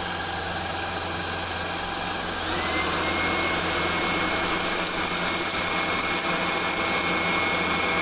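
Shark IX141 cordless pet stick vacuum running with its floor head, sucking up a pile of dirt on a hard floor. About two and a half seconds in the motor gets louder and a steady high whine comes in.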